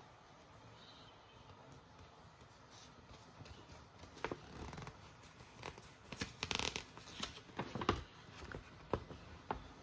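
Hands handling and opening packaging: scattered small clicks, scrapes and rustles, starting about four seconds in and busiest in the middle.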